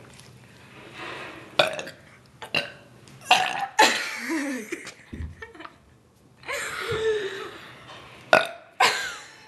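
A string of loud voluntary burps from two girls, several short and sudden. Two are longer, drawn out for about a second each, one with a wavering pitch.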